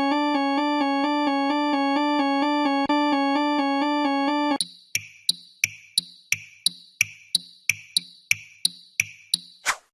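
Animated level-crossing warning sounds: a steady electronic tone held for about four and a half seconds, then a cut to a crossing bell dinging about three times a second, with a louder strike near the end.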